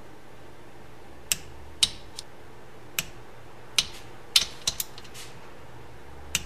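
An inch-pound click-type torque wrench and socket working the camshaft holder bolts: about eight sharp, separate metal clicks as each bolt is brought up to 9 foot-pounds.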